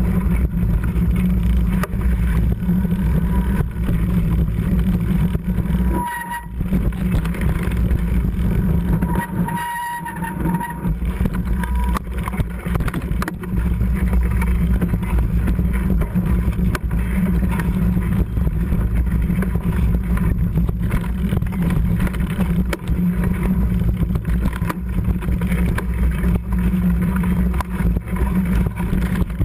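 Mountain bike riding over a rough trail, heard through a camera mounted on the bike: a continuous loud, low rumble and rattle of the tyres and frame, with wind on the microphone. Two brief high squeals come about six and ten seconds in, as the rumble eases.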